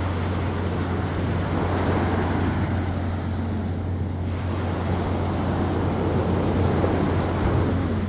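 Small waves breaking and washing up a sandy beach, with steady wind rumble on the microphone. The wash swells about two seconds in and again near the end.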